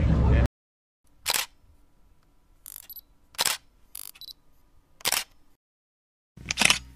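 Camera shutter clicking: four sharp single clicks about every one and a half to two seconds, with fainter clicks between them. The loud background noise before them cuts off abruptly about half a second in.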